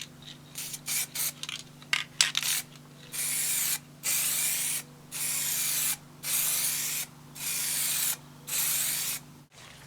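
Aerosol spray can of primer spraying a heavy third coat on a car body panel. It starts with a few quick spurts, then about six even bursts of under a second each with short pauses between.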